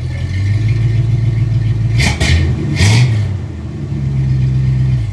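Old Chevrolet half-ton pickup's engine running and blowing heavy smoke, revved in two sharp blips about two and three seconds in, its pitch rising and falling. The sound cuts off suddenly near the end.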